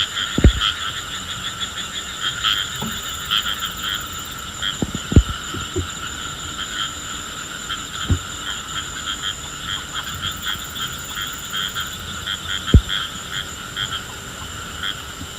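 A dense chorus of frogs calling in fast, continuous pulsing trills, with a steady high tone above it. Four short, dull, low thumps stand out at irregular intervals, louder than the chorus.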